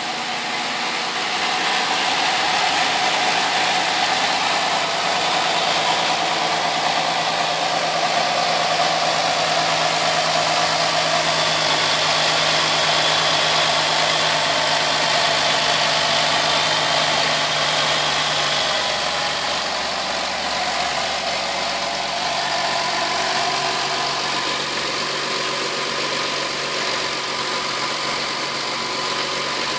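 A 2012 Jeep Liberty's 3.7-litre V6 idling steadily, heard up close in the open engine bay. It has fresh oil, a new oil filter and new spark plugs.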